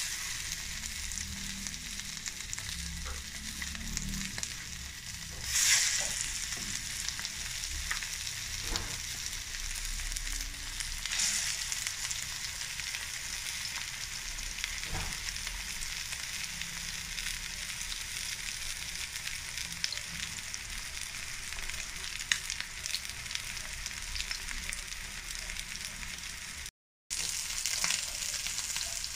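Minced-meat hamburger patties sizzling in hot oil in a frying pan: a steady hiss with a few louder surges, broken off briefly near the end.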